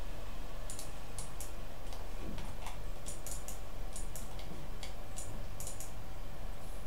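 Computer mouse clicking: a string of short, sharp clicks, some in quick pairs, over a steady low background hum.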